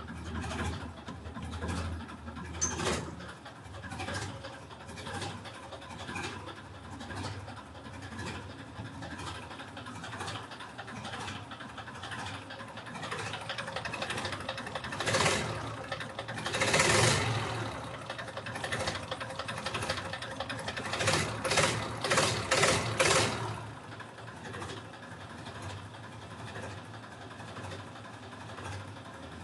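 Torpedo TD 45 tractor's diesel engine running steadily just after a cold start in frost, with louder passages about halfway through and again a few seconds later.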